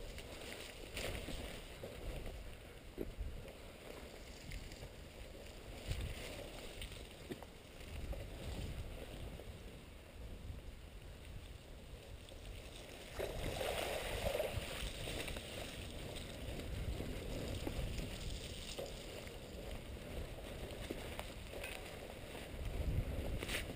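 Mountain bike riding over a muddy, rutted forest trail, picked up by a helmet camera: a steady low rumble of tyres and wind on the microphone, with scattered knocks and rattles from bumps. It gets louder and rougher a little past halfway.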